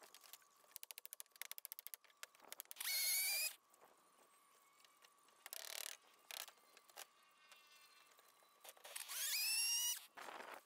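Handheld power drill spinning up in two short runs, each a rising whine that then holds, after a fast run of clicks in the first two seconds. Short scraping noises come in between.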